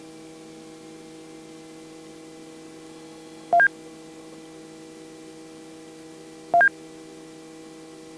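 Steady hum of several tones on the R44 helicopter's cockpit intercom, with two short two-note electronic beeps, low then high, about three seconds apart.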